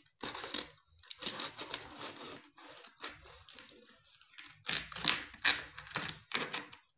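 A cutter knife's blade slitting the packing tape along the seam of a cardboard shipping box, in a run of scratchy strokes with short pauses between them, the loudest about five seconds in.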